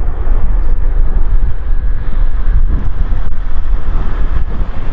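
Airbus A400M Atlas turboprop airlifter flying past, its four engines and propellers making a loud, steady low rumble, with wind buffeting the microphone.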